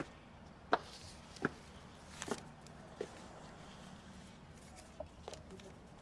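Footsteps of hard-soled shoes on a paved path: a sharp click about every three-quarters of a second for the first few seconds, then a pause and a couple more steps near the end. A low steady hum of outdoor background lies under them.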